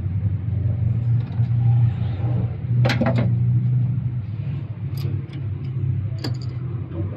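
A few sharp metallic clicks from hand tools working the rocker-arm tappet adjusters of a Suzuki Mehran F8 engine during a valve clearance setting, over a steady low hum.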